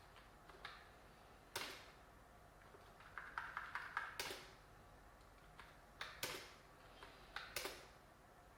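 Light clicks and knocks of small computer hardware being handled. There are a handful of separate sharp clicks, with a quick run of small clicks about three to four seconds in.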